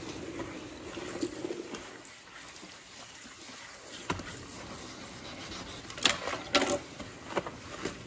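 Sponge in a rubber-gloved hand scrubbing a wet white cast-iron kitchen sink: faint rubbing, with two brief louder scrapes about six seconds in.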